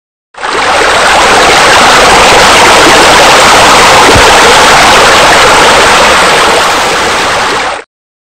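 Loud, steady rush of falling water, the sound of a spa's spillover water feature, starting abruptly and cutting off suddenly about seven and a half seconds later.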